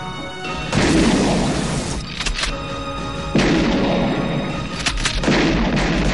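Action-trailer score with three heavy booming hits, about a second in, past three seconds and past five seconds, each ringing out, and a few sharp gunshot-like cracks in between.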